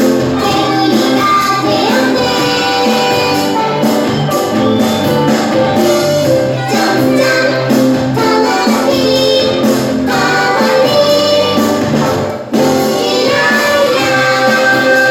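A children's song: children's voices singing over bouncy backing music, which briefly dips about twelve seconds in.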